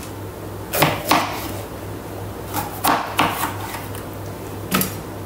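Kitchen knife chopping a red capsicum on a chopping board: about six sharp, irregular knocks of the blade against the board.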